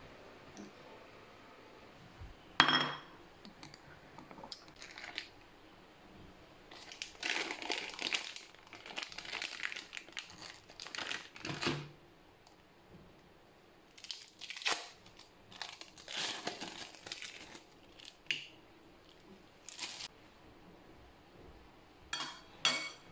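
Plastic wrapper of a processed cheese slice crinkling in several bursts as it is peeled off. A single sharp click comes about two and a half seconds in, and a few light knocks come near the end.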